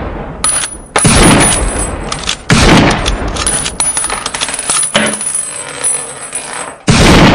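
Intro sound effects: loud sudden hits about a second in, two and a half seconds in and near the end, each fading away in a long echoing tail, over a thin high metallic ringing.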